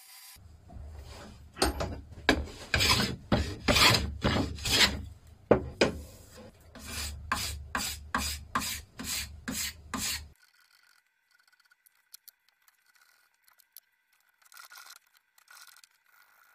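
A hand tool rasping back and forth on a wooden strip in quick strokes, about two a second, stopping abruptly about ten seconds in. After that come only faint light scrapes and ticks on the wood.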